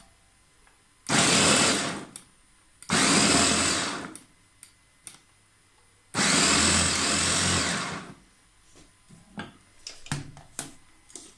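Electric food chopper pulsed three times: two bursts of about a second and one of nearly two seconds, each starting suddenly and whirring down as the button is released, as it chops onions, mint, green chillies and ginger-garlic paste. Light clicks and knocks of the chopper being handled follow near the end.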